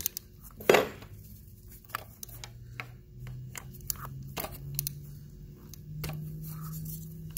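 Scattered small clicks and taps of a wrench working the injector fuel line nut on a Detroit DD15 engine, with one louder knock about a second in. A faint low hum sits underneath and steps up slightly in pitch in the second half.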